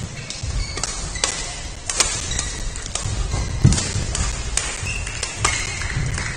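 Badminton rallies: rackets striking shuttlecocks with irregular sharp cracks, from the near court and neighbouring courts, along with short squeaks of shoes on the court floor.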